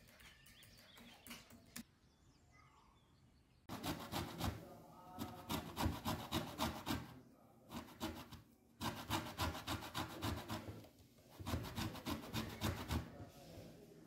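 Quick back-and-forth scraping strokes of kitchen prep work, coming in three bursts of a few seconds each with short pauses between.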